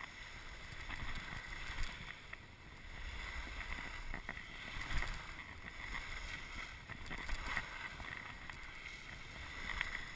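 Skis sliding and scraping over snow during a descent, with wind rushing on the microphone.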